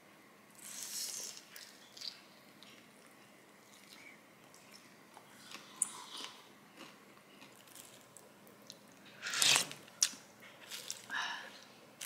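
Chewing a mouthful of crispy guobaorou (battered, sweet-and-sour fried pork), close to the mic, with scattered crisp crunches and small clicks. About nine and a half seconds in there is a sharper, louder burst of noise.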